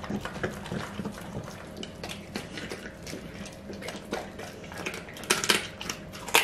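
Pit bull eating raw chicken and vegetables from a stainless steel bowl: wet chewing, smacking and licking, with clicks of teeth against the metal bowl and a louder burst of chewing about five seconds in.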